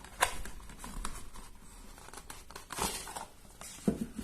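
Handling noise from a glass jar and its packaging: rustling with a few light clicks and knocks.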